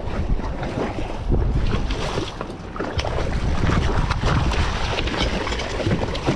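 Wind buffeting the microphone, with water splashing and sloshing beside a boat's hull as a hooked yellowtail kingfish thrashes at the surface, and short knocks and splashes scattered through it.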